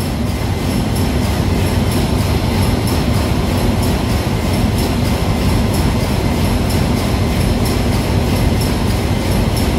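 Loud, steady machinery drone with a deep rumble and a faint regular ticking on top: the constant background noise of running machinery in a ship's engine room.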